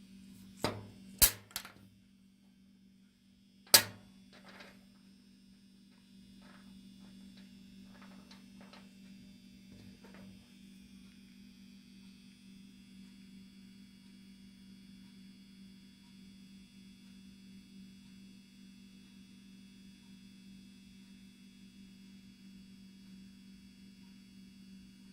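A handful of sharp clicks in the first four seconds, the loudest about four seconds in, then a few fainter ticks, over a steady low electrical hum.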